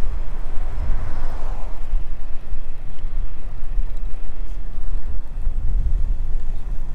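Wind buffeting the microphone of a bicycle-mounted camera while riding, with tyre rumble underneath: an uneven, fluttering low rumble.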